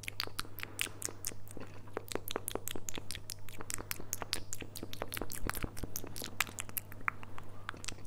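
Close-miked mouth sounds: rapid, irregular clicks and pops of the lips and tongue, made into a cupped hand held against a fur-covered microphone, several a second.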